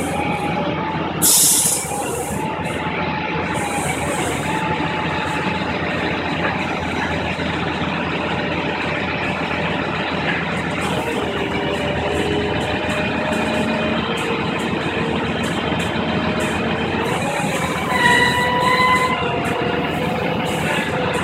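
A heavy vehicle engine running steadily, its pitch shifting slowly. There is a short burst of hiss about a second in, and near the end a brief louder whine with several steady tones.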